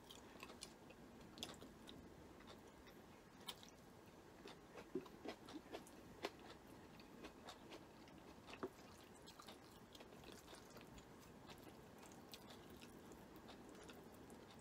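Faint chewing of stir-fried egg noodles, with scattered soft mouth clicks and smacks; a few sharper clicks come between about five and nine seconds in.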